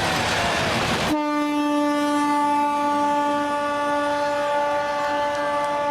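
A train runs with a rushing noise. About a second in, this cuts off suddenly and a train horn sounds one long, steady note that holds without a break.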